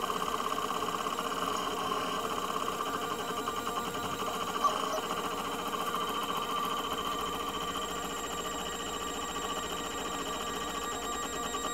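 ReliaBuild3D RB3 3D printer laying down its first layer: the stepper motors whine in steady tones as the print head moves, with a single click about four and a half seconds in.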